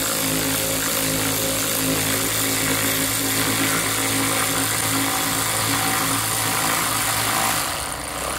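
A machine's motor running steadily: a constant hum with an even hiss over it.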